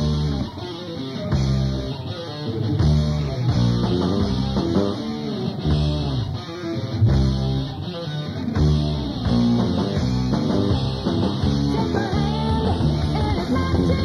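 Rock band recording playing an instrumental passage, with guitar, bass guitar and drums.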